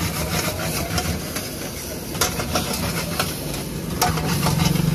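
Chowmein noodles sizzling and hissing in a hot wok over a gas burner, with a metal spatula scraping and clanking against the pan a few times as they are stir-fried.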